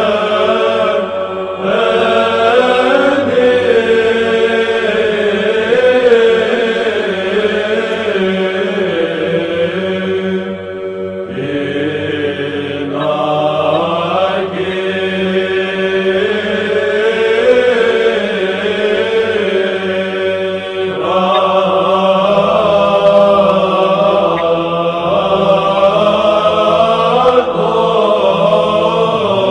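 Greek Orthodox Byzantine chant: a sung melody winding slowly up and down over a steady held drone, with short pauses between phrases about a second in and about eleven seconds in.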